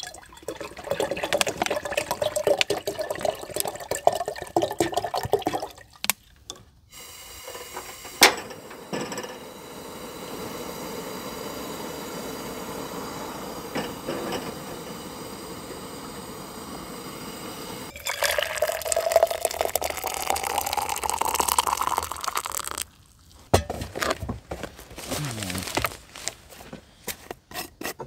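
Liquid pouring into a container in stretches; about two-thirds of the way in the pitch rises steadily as the vessel fills, then cuts off.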